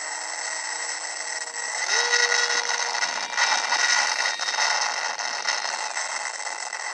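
Small electric motor of an RC foam plane whining over a steady hiss. The whine jumps up in pitch about two seconds in, and the sound gets louder from there.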